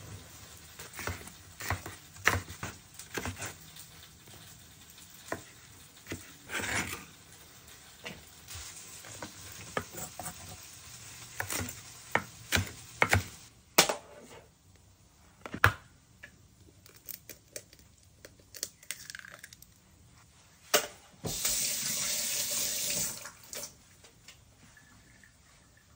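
A kitchen knife chopping vegetables on a plastic cutting board: irregular knocks of the blade striking the board, some much louder than others. Later a tap runs for about two seconds.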